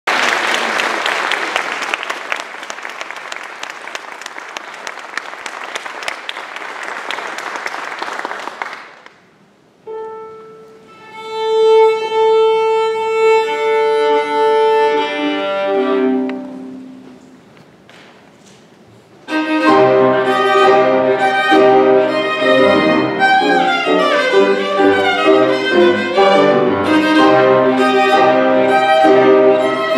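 Audience applauding, then a viola sounding a long tuning A and a few lower notes as it tunes. About two-thirds in, viola and piano launch together into a fast, energetic concerto movement.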